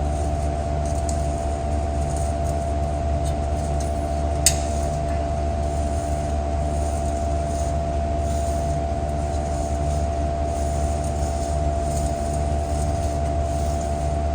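Steady mechanical hum with a low drone and a few constant tones, with one sharp click about four and a half seconds in.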